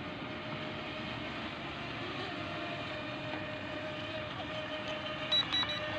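Small electric RC speedboat motors whining steadily out on the water, heard at a distance over steady outdoor noise. Near the end there are a few short, high beeps.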